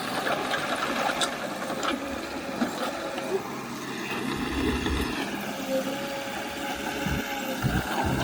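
Heavy earthmoving machine's engine running with a rapid mechanical clatter, a deeper rumble swelling in about halfway through and again near the end.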